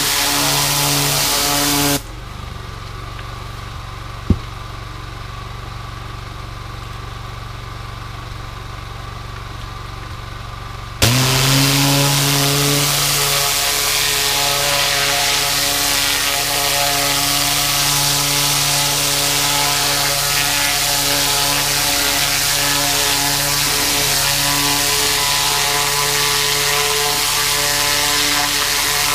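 Gas-engine pressure washer running while its 4,000 PSI zero-tip jet hisses against a wet deer hide. About two seconds in the spray stops and the engine runs on alone, with one sharp click a couple of seconds later. About eleven seconds in the jet cuts back in abruptly and keeps blasting steadily.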